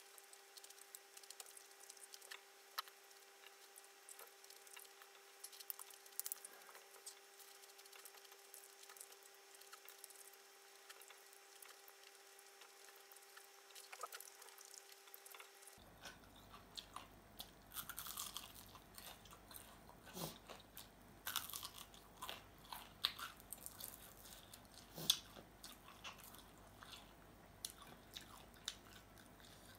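Faint close-up chewing and crunching of fried chicken wings and cucumber salad, with scattered sharp mouth clicks.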